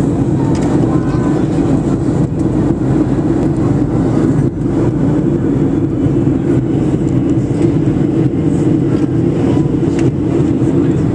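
Steady low rumble of cabin noise inside a Boeing 737-700 in flight: engines and airflow on approach, with faint voices in the background.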